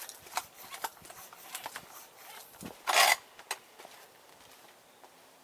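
Bicycle pump on a tyre's Schrader valve being handled: scattered light clicks, and about three seconds in a short, loud rush of air.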